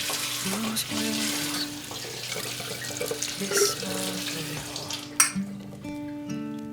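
Tap water running into a sink, most likely rinsing the salt and lemon off the copper kettle. It stops about five seconds in with a sharp knock. Background music plays throughout.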